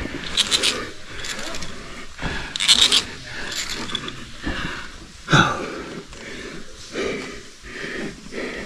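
Rope-ascending gear scraping and clicking as a caver climbs a fixed rope, in uneven bursts of rasping, the strongest about half a second and about three seconds in. A short sound slides down in pitch about five and a half seconds in.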